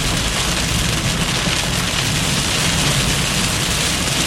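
Heavy rain beating steadily on a moving car, heard from inside the cabin over a low, steady rumble of road and engine noise.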